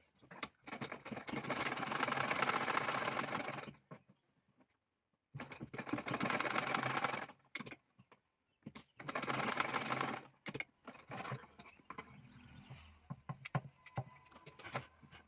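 Straight-stitch sewing machine stitching in three short runs of a few seconds each, stopping and starting as the fabric is turned, followed by a few scattered sharp clicks.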